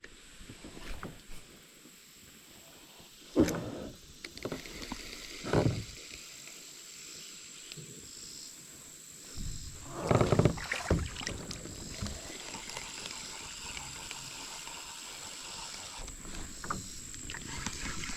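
Kayak being handled on the creek: scattered bumps and water sounds against the hull, one sharp knock about three and a half seconds in, another near five and a half seconds, and a longer cluster around ten to eleven seconds, over a faint steady high tone.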